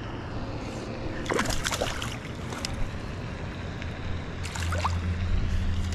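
Hooked largemouth bass splashing and thrashing at the pond surface as it is played in to the bank, in two bursts: about a second in and again around four and a half seconds.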